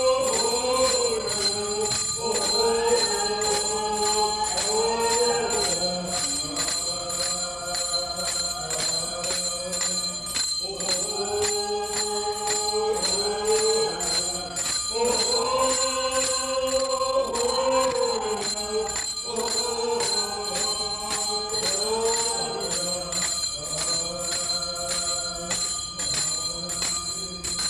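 Slow memorial music: sustained choir voices holding chords over a steady jingling percussion beat.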